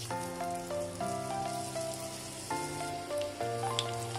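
Batter-dipped egg halves sizzling and crackling as they deep-fry in hot oil in a kadai, under background tropical house music.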